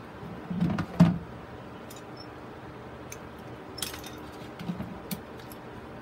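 A plastic mounting grid being handled and turned on a plastic box by gloved hands: a few dull knocks about a second in, the loudest just after, then light clicks and clinks of small tools being handled, over a steady faint hum.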